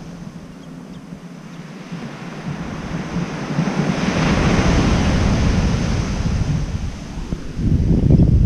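Ocean surf breaking and washing up a sandy beach, swelling to a peak about halfway through and then easing. Wind buffets the microphone near the end, which is the loudest part.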